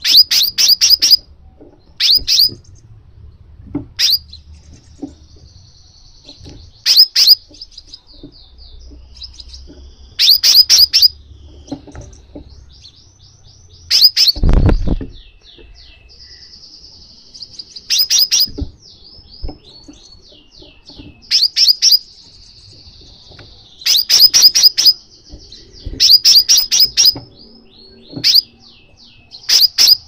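Crimson sunbird calling: clusters of three to six sharp, high, down-slurred chips every couple of seconds, with a faint, fast, high twittering trill between them. About halfway through there is one loud low thump.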